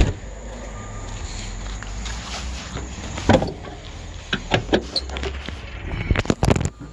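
A pickup door shutting with a sharp knock. Then come scattered clunks and clicks as the hood of a Chevrolet S-10 is unlatched and raised. A steady low rumble runs underneath.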